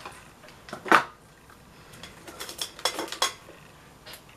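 Makeup products and brushes being picked up and handled: one sharp click about a second in, then a run of small clicks and clatters a little past the middle.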